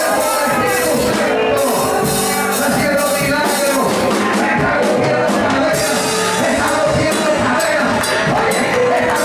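A live church band plays a praise song on electric guitar, electronic keyboard and drum kit, while a man sings over it into a microphone.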